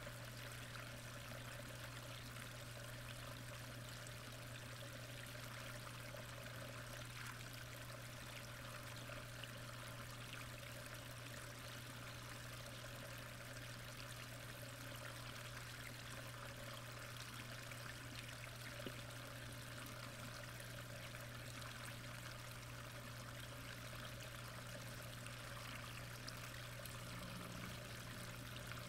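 Steady rush of flowing pond water picked up by a submerged camera, with a constant low hum underneath.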